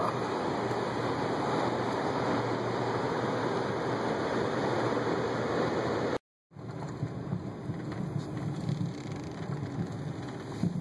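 Steady hissing road and rain noise inside a vehicle driving on an icy road in freezing rain. It cuts out abruptly a little over six seconds in, then returns quieter with more low engine rumble.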